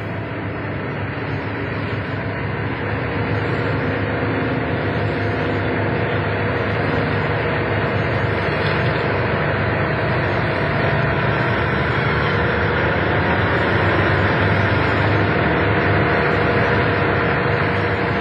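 Oshkosh snowplow truck under way, heard from inside the cab: a steady engine drone with road noise that gradually grows louder.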